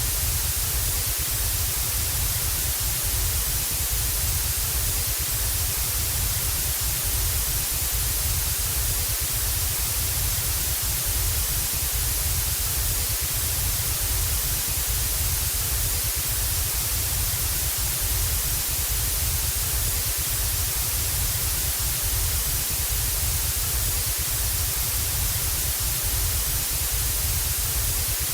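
Television static sound effect: a steady, even hiss of analogue TV white noise, strongest in the high end, with a low rumble underneath and no change throughout.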